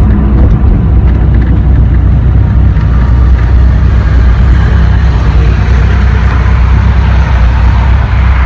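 Dodge Viper SRT-10's 8.3-litre V10 engine and exhaust giving a loud, steady low rumble as the car drives, heard from inside the car along with road noise.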